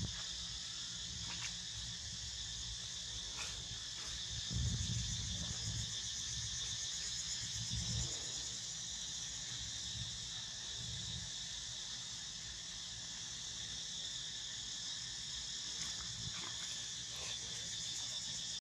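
Steady chorus of insects trilling, with a few low rumbles over it, the strongest about a third of the way in.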